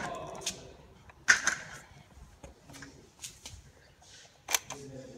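Sharp plastic clicks and knocks from handling an old 1990s Brio stand fan's switch housing and pole: one loud click about a second in, a few smaller ticks, and another loud click near the end.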